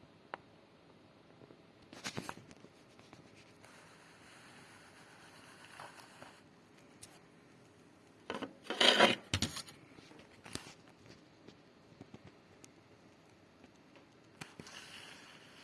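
Handling sounds in a small room: scraping and rubbing in short spells, the loudest a rough scrape of about a second some nine seconds in.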